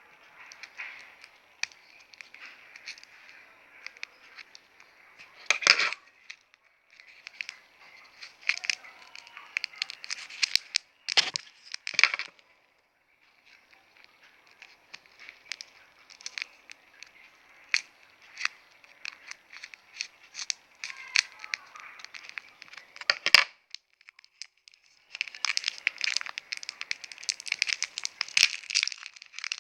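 Hands unpacking and handling play dough, making irregular crinkling, crackling and tearing noises with a few sharper snaps and short pauses; the crinkling gets denser near the end.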